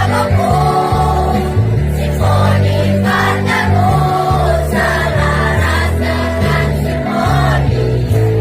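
School choir of boys and girls singing a patriotic song in unison, over a steady electronic keyboard (Electone) accompaniment with held bass notes.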